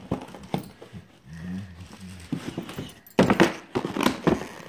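Wrapping paper crinkling and tearing as a dog noses and paws into a gift-wrapped box, in scattered crackles with a louder flurry of rustling about three seconds in.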